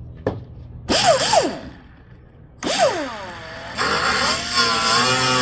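Small handheld power cutting tool, the kind used to trim a fan shroud, triggered in two short bursts that spin up and wind down, then running steadily from about two-thirds of the way in, its pitch wavering as it loads into the cut.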